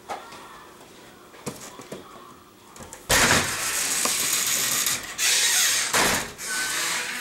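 A few light footsteps and clicks, then about three seconds in the metal storm door is pushed open and a sudden loud rushing noise takes over, dipping briefly twice.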